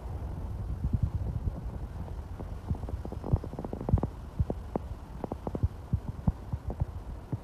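Wind buffeting the phone's microphone on a moving ship: an irregular low rumble with many soft, uneven thumps.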